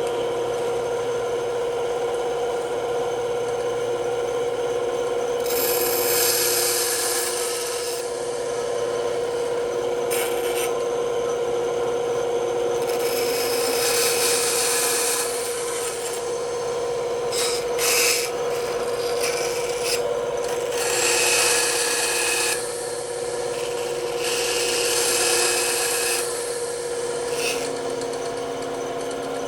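Bandsaw running with a steady hum, its blade cutting through wood in several passes of a few seconds each.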